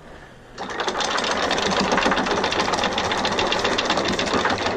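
Electric anchor windlass starting up about half a second in and running steadily, a motor hum with rapid fine clicking as it hauls in anchor chain, just enough to take the load off the snubber.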